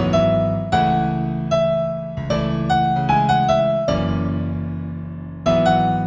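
Slow New Age piano music in A major: a melody of single struck notes over sustained low chords. About four seconds in a held chord fades out, and new notes begin shortly before the end.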